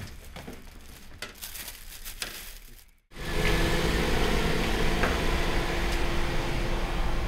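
A few knocks of plastic produce crates being handled on the bed of a kei mini truck. After a cut about three seconds in, the mini truck's engine runs louder and steadily as it drives off.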